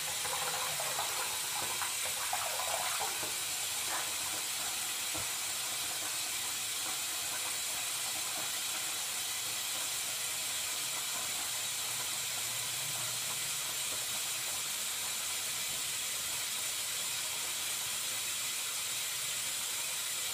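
Water running steadily from a tap, with some splashing in the first few seconds as a bubbling bath truffle is held under the stream.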